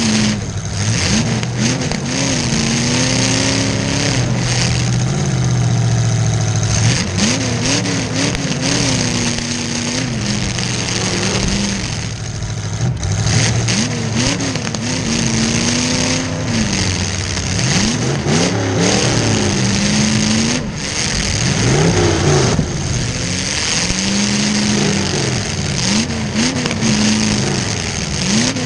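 Demolition derby car's V8 engine revving up and back down again and again over a steady running drone, each rev a rise and fall in pitch lasting a second or two.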